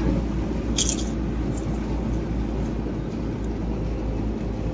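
Steady low rumble of a van's engine and road noise heard inside the cabin. There is one brief crackle about a second in.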